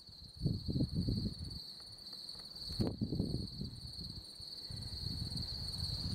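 Crickets chirping steadily in one continuous high trill. Low rumbling noise comes and goes underneath, loudest about half a second in and again around three seconds in, where a sharp click also sounds.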